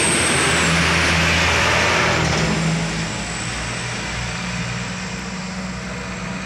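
Diesel trucks passing close on a road, with loud engine and tyre noise for about two and a half seconds, then quieter engine sound as the trucks pull away.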